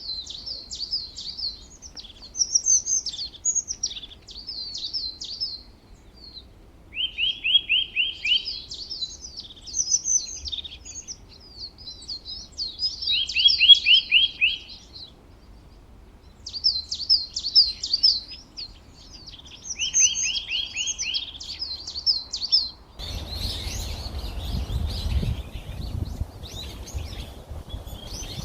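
Songbird singing a repeated phrase: a quick run of even, lower chirps followed by a jumble of higher twittering notes, coming back about every six seconds. Near the end a low rushing noise joins in.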